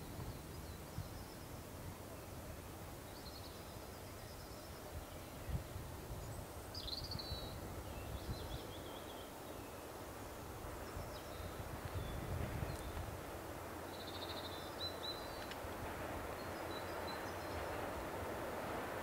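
Songbirds calling in short, scattered phrases over a steady outdoor hiss. In the last few seconds the low rumble of an approaching on-track maintenance machine slowly grows.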